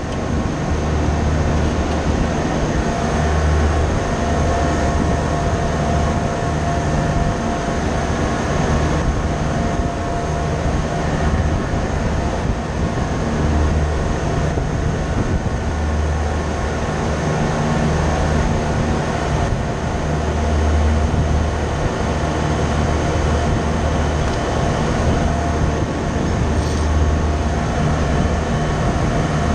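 A steady, loud machine drone with a low rumble that swells and fades every few seconds.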